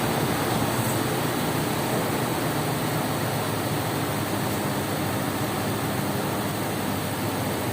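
Car engine idling steadily after being jump-started with a portable jump starter pack.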